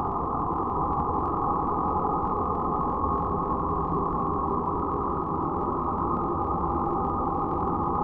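Dark ambient noise drone: a dense, steady, muffled wash of noise with a low rumble and little sound in the upper range.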